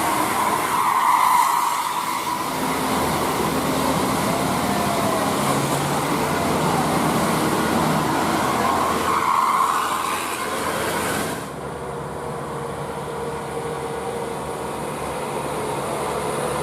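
Roadside traffic noise from passing buses and other vehicles: steady engine and tyre noise that swells twice as vehicles go by, then turns duller about eleven seconds in.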